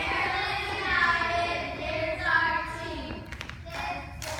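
A group of young girls singing together, holding long notes.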